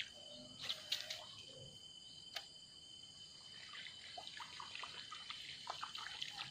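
Small splashes and plops of a topwater fishing lure being worked across a river surface, many in quick succession during the second half. A steady high insect drone runs underneath, with a few sharp clicks early on.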